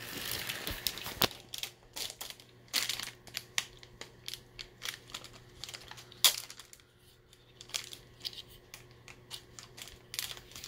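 Plastic packaging crinkling and crackling in irregular short bursts as a wrapped toy packet and a plastic bag are handled, with a sharp click about six seconds in.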